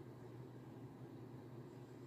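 Faint room tone: a steady low hum under a light hiss, with no distinct sounds.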